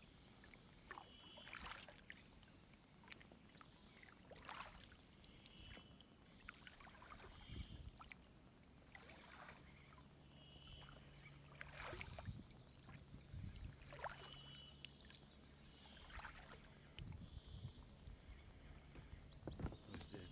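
Quiet ambience in a small boat on the water: scattered short bird chirps, occasional soft knocks and small water sounds against the boat, and, from about halfway, a faint steady low hum.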